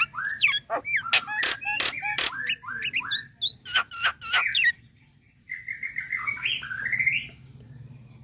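Common myna calling close up: a fast run of sharp clicks mixed with short whistled notes for about four and a half seconds. After a short pause comes a stepped, rising chatter of notes.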